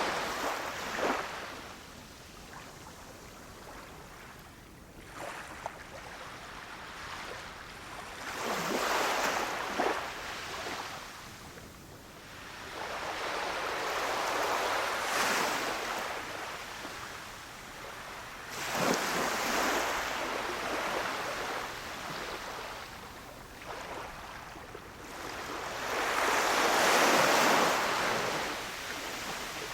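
Small waves breaking and washing up on a sandy beach, each surge of surf swelling and fading over a few seconds, with the biggest wash near the end.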